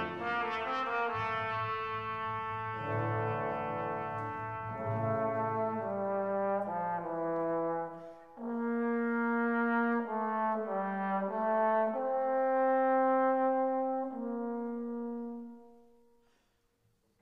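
Background music of slow, held brass chords that fade out near the end.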